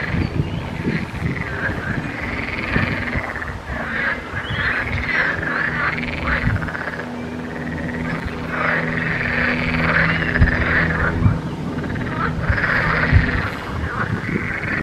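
Frogs croaking from a pond in an overlapping chorus of repeated rattling calls, which the uploader takes for bullfrogs.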